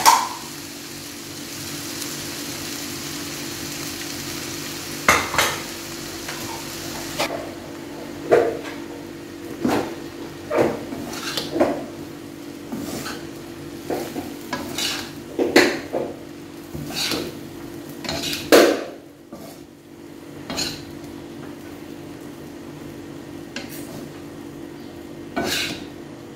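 Spaghetti noodles being stir-fried in a wok: a steady sizzle under irregular clacks and scrapes as a metal spatula and a plastic spatula toss the noodles against the pan. The sizzle drops lower after about seven seconds.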